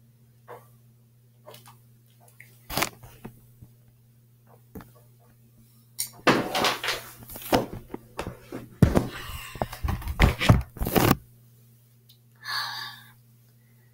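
Rustling, bumps and thumps of the recording device being handled and covered, loudest in a long stretch from about six to eleven seconds in, after a single sharp knock about three seconds in. A low steady hum runs underneath, and a short voiced sound comes near the end.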